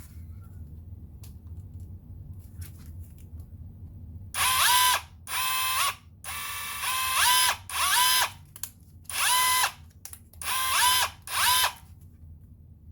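TMG cordless impact wrench spinning with no load in a series of about eight short trigger pulls, each starting about four seconds in and each spinning up with a rising whine before cutting off. The run is a trial of its reverse and speed modes.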